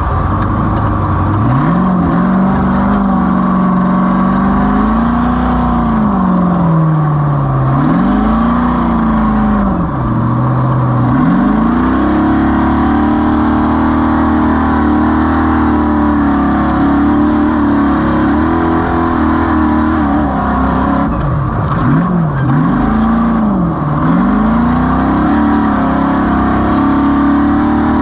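Off-road race vehicle's engine under hard driving. The revs climb, drop back sharply several times as the throttle is lifted, and hold high for long stretches, over a steady noise of wind and rattle.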